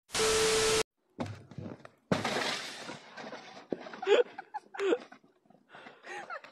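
A burst of TV-static hiss with a steady beep under it, lasting under a second, as a video transition effect. Then, about two seconds in, a crunching impact as a person breaks through the snow crust into a hole, followed by a few short vocal cries.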